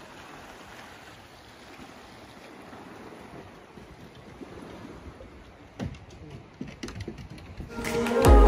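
Soft, steady outdoor rush of ambient noise by the water, with a few sharp knocks about six to seven seconds in. Background music then fades in near the end and becomes the loudest sound.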